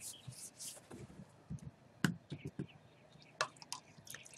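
Faint clicks and knocks from a plastic fuel can and its spout being handled as a little fuel is poured into a small plastic cup.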